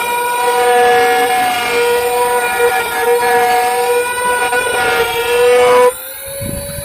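CNC router spindle running with a steady high whine and overtones over cutting noise. Near the end it suddenly gets quieter and the whine steps slightly higher in pitch.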